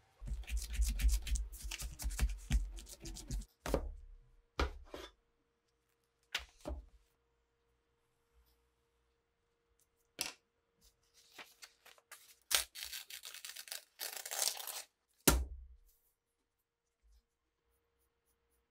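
Paper handling: rustling and crackling with low thumps, a few separate knocks, then a sheet being torn out of a notebook, ending in a sharp knock on the table.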